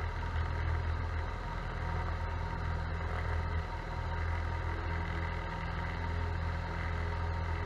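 Cessna 172's piston engine and propeller at takeoff power, a steady low drone heard inside the cabin, during the takeoff roll and liftoff.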